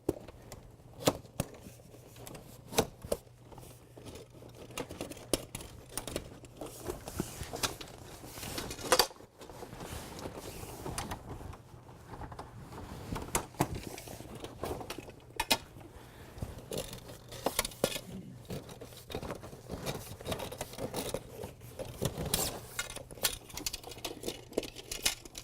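Clicks, knocks and light rattling as the frame rods of a folding boat are unclipped from their fittings and pulled apart, in irregular handling sounds with a few sharper snaps.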